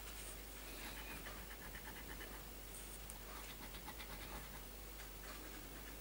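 A coin scratching the coating off numbers on a bingo scratch card: faint, quick scraping strokes, in one run about a second in and another around three to four seconds in.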